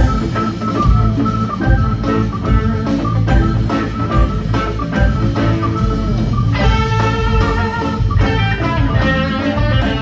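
Live rock band playing: drum kit, bass, organ and electric guitars come in together at the start, after an organ intro. About six and a half seconds in, a sustained electric guitar lead rises above the band.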